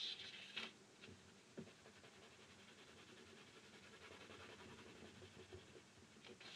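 Faint scratching of a coloured pencil shading across paper, with a couple of slightly louder strokes in the first second.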